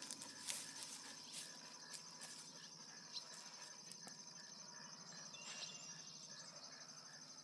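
Faint, steady high trilling of insects, with a slower regular chirp pulsing about two or three times a second beneath it, and a few soft clicks.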